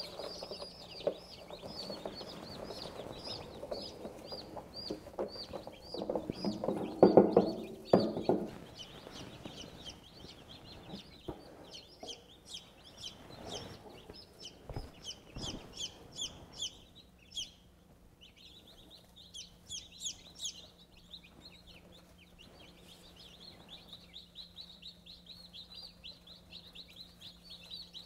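A brood of day-old chicks peeping nonstop, many short, high, falling peeps overlapping. There is a louder, lower noise about seven seconds in, and the peeping thins out briefly past the middle.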